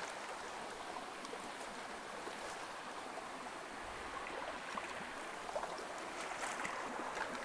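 Shallow rocky stream rushing over stones, a steady water noise, with a few faint clicks in the last couple of seconds.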